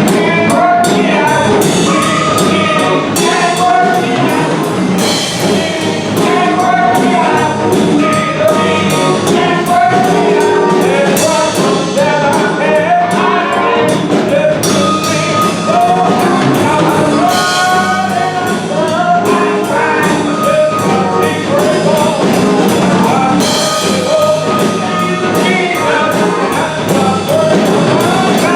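Gospel music: voices singing over a continuous instrumental accompaniment.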